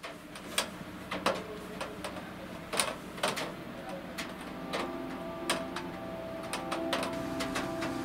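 Raindrops tapping on a balcony window and sill: irregular sharp taps, roughly one a second, over a low steady background.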